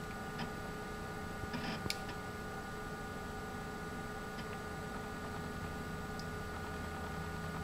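Steady electrical hum from a desktop computer and its CRT monitor, with a few faint clicks and light taps scattered through, the loudest a short cluster about a second and a half in.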